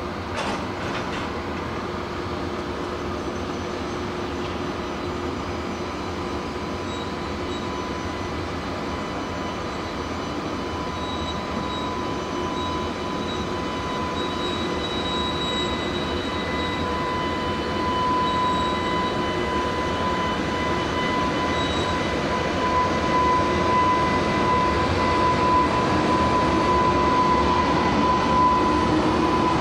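EH500 electric freight locomotive hauling a container train at low speed: a steady whine over a running rumble, growing louder as it comes closer.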